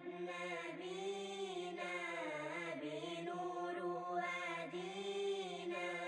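Background vocal music, an Arabic devotional nasheed-style chant: a voice holding long, wavering melodic notes over a steady drone.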